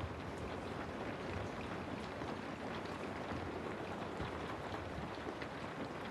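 Steady rain: an even hiss with many scattered drops tapping, over a low rumble.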